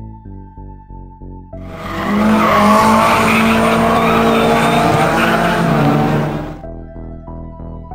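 Background music with evenly pulsed notes, cut about a second and a half in by a loud racing car engine at high revs as the car takes a bend on a hillclimb course. The car sound stops suddenly near the end, and the music comes back.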